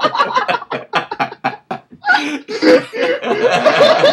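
Men laughing hard in rapid, choppy bursts that pause about halfway through and then start up again.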